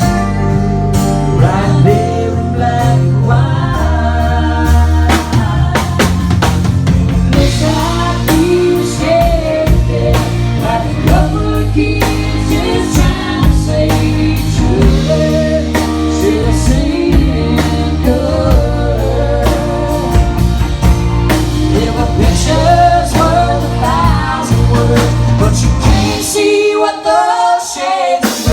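Country-rock song with singing, guitar, bass and drums.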